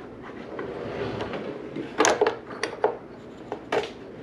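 Light clicks and knocks of small boat parts being handled and fitted together by hand, over a faint rubbing. The loudest cluster comes about two seconds in, with a few single knocks after it and one near the end.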